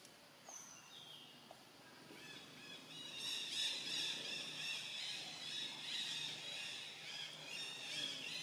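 Two single high chirps, then from about two seconds in a dense, steady chorus of many overlapping high-pitched chirping animal calls builds up.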